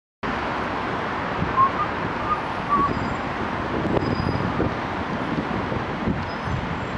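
Steady outdoor background noise: road traffic rumble mixed with wind buffeting the microphone, with a few short chirps between about one and a half and three seconds in.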